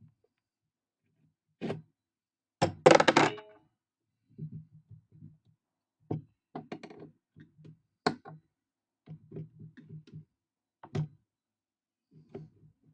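Knocks and clanks of metal parts and tools being handled while a vintage Pfaff industrial sewing machine is taken apart, with a louder rattling clatter about three seconds in, followed by a string of lighter taps and knocks.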